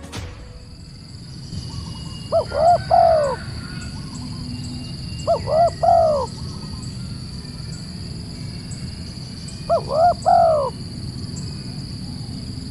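A bird calling: short phrases of about three rising-and-falling notes each, repeated three times a few seconds apart. A steady faint high-pitched whine runs behind them.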